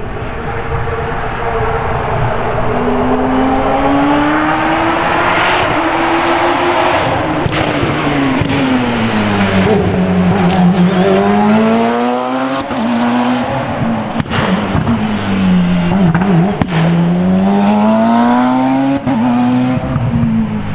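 Open-cockpit sports-prototype race car engine revving up and dropping back several times as the car accelerates and slows through a cone slalom, with a few sharp cracks between the revs.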